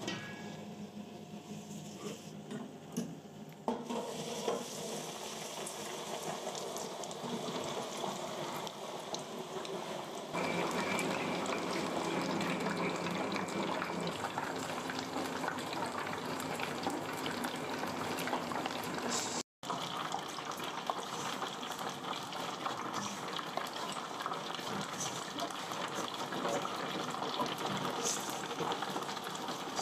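Gloved hands rubbing chicken drumsticks through dry breadcrumbs in a stainless steel bowl, a soft gritty rustle. About ten seconds in it gives way to a louder steady crackling sizzle of drumsticks deep-frying in hot oil in a basket fryer. The sound cuts out for a moment partway through, then dense crackling continues.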